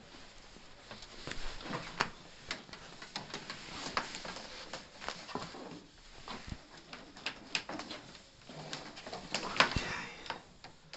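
Irregular clicks, knocks and scraping as a plastic water pipe and a rigid draw rod are handled and pushed between timber floor joists. The sharpest knock comes near the end.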